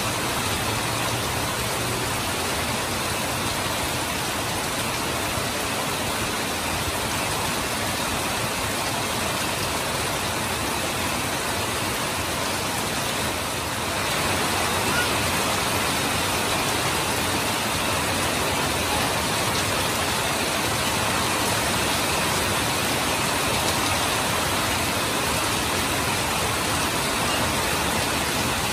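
Heavy rain pouring steadily in an even hiss, with water running off a roof edge; it gets slightly louder about halfway through.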